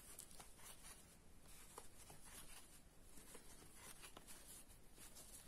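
Near silence with faint, scattered scratching and rustling of a crochet hook drawing yarn through single crochet stitches.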